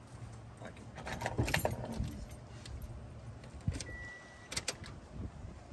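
Rattling and sharp clicks of handling inside a pickup truck's cab, with a short steady electronic beep about four seconds in, as the truck is readied to test its newly wired power tow mirrors.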